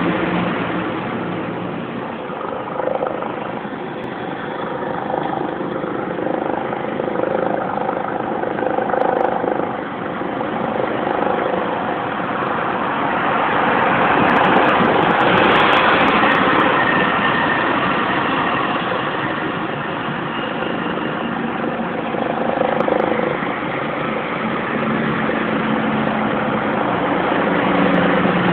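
A steady mechanical engine drone with a few held tones running through it, swelling louder about halfway through and then easing back.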